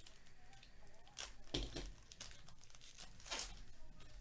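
A trading-card pack wrapper being torn open and crinkled by hand, in a few short rustling bursts, the loudest about a second and a half in and again near the end.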